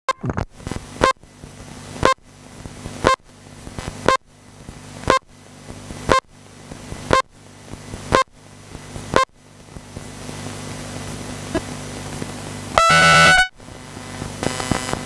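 RC race-control start procedure: about ten short electronic beeps, one a second, counting down to the start. After a pause of about three seconds comes a longer, louder start tone, the signal on which the buggies leave the grid.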